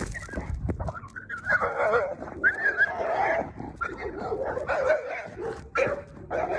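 Dogs barking and whining in a string of short, uneven calls.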